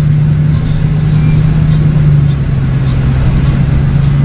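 Car engine running steadily at low speed while driving slowly, a constant low drone with road rumble beneath it.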